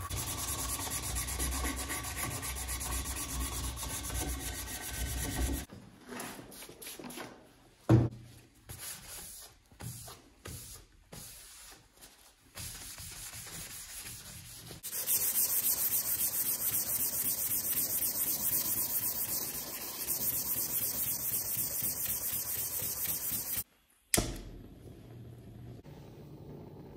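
Hand sanding a wooden cutting board with a sanding sponge: quick back-and-forth scraping strokes, first in the handle hole and later, louder, across the flat face. A single sharp knock comes about eight seconds in.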